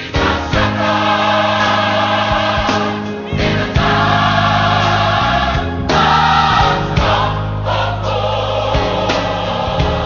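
Gospel choir singing long held chords over a steady bass and keyboard accompaniment, the chord changing a few times.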